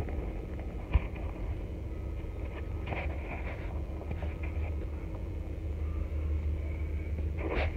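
Steady low rumble of a car heard from inside its cabin, with a short knock about a second in.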